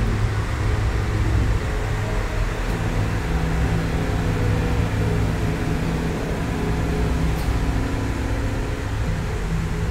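Riverboat engine droning steadily, with a low rumble and a steady hum that settles in about a second and a half in, over a constant rushing noise of water and wind.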